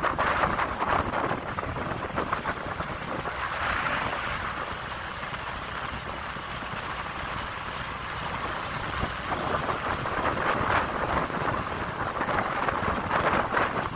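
Wind rushing over the microphone of a phone on a moving motorcycle, with engine and road noise underneath. The wind swells and eases in gusts, strongest near the end.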